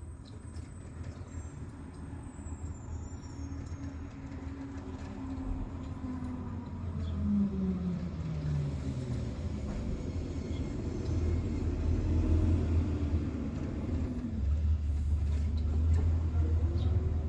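Low rumble of a passing motor vehicle that grows gradually louder, with an engine tone that drops in pitch about halfway through.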